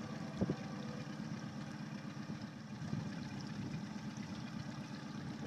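Small boat's outboard engine idling steadily as a low rumble, with one short knock about half a second in.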